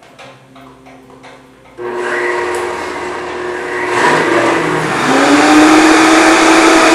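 Two high-powered countertop blenders, a Vitamix and a Blendtec, switched on together. A few light clicks come first, then about two seconds in the motors start with a loud whine that climbs in pitch and grows louder as the blades spin up.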